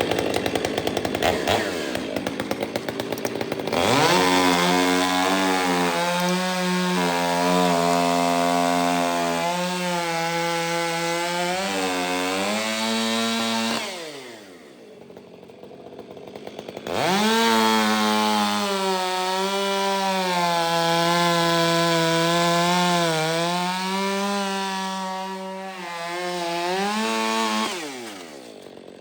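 Large chainsaw fitted with a Bark Box aftermarket muffler, cutting through sawmill slabs at full throttle, very loud. It makes two long cuts, its pitch sagging under load, and drops back to idle between them about 14 seconds in and again near the end. The sound echoes inside an enclosed building.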